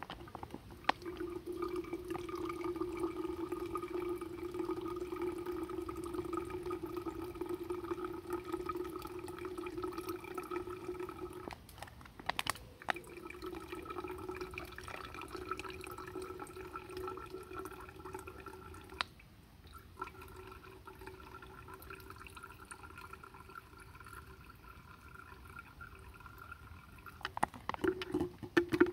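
Water running in a thin stream at a water bottle being filled with stream water, making a steady tone. The tone breaks off briefly about twelve seconds in, then resumes, growing fainter from about two-thirds of the way through. There are a few handling knocks near the end.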